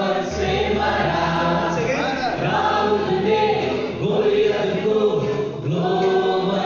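A church congregation singing a worship song together, with a steady low bass note coming in just after the start.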